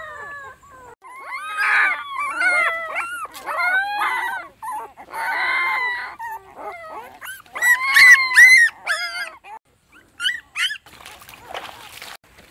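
Newborn puppy whimpering and crying: many short, high-pitched cries that rise and fall in pitch, loudest a little past the middle. Near the end the cries stop and footsteps slosh through shallow, weedy water.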